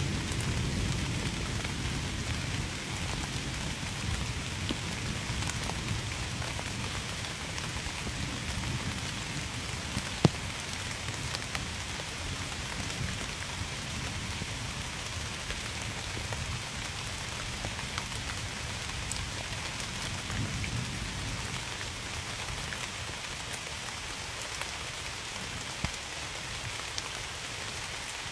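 Steady rain falling on a surface, with individual drops ticking through it. A low rumble of distant thunder dies away over the first few seconds, and one sharp tick stands out about ten seconds in.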